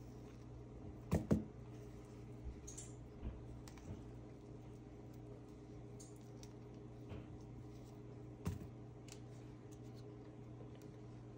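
Ripe bananas being peeled by hand over a ceramic bowl: scattered light taps and clicks, with two sharp knocks just over a second in and another about eight seconds in, over a steady low hum.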